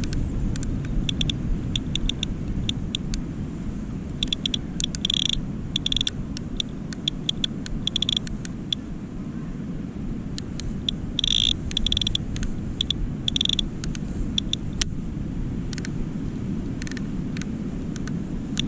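Strong wind buffeting the microphone as a steady low rumble, with sharp high clicks and ticks coming in irregular clusters.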